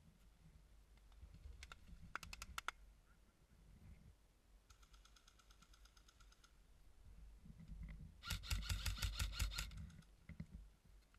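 Airsoft guns firing: a quick string of sharp shots about two seconds in, a short rapid automatic burst in the middle, and a louder automatic burst of about a second and a half near the end.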